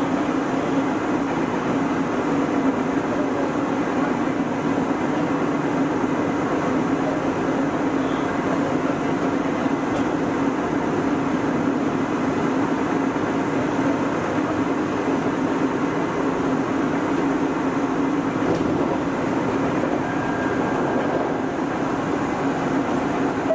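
Nagoya Municipal Subway 3000-series electric train running at steady speed, a continuous rumble of wheels and running gear heard from inside the front car.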